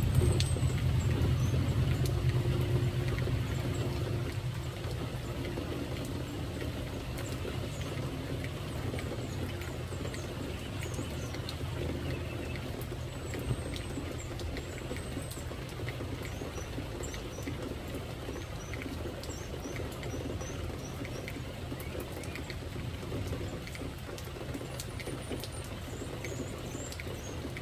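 Steady rain patter, with a low rumble that eases after the first few seconds and scattered high-pitched bird chirps.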